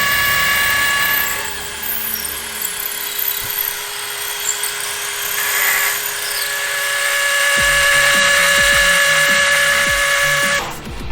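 Power drill boring a hole in concrete steps for a Tapcon masonry screw, running with a steady whine. It eases off for a few seconds after the start, runs hard again, and stops near the end.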